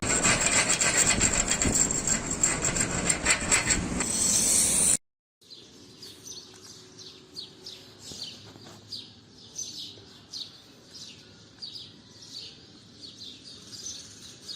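Stick-welding arc on a 7018 electrode crackling steadily and loudly, cutting off abruptly about five seconds in. A much quieter passage follows, with short high chirps repeating about twice a second.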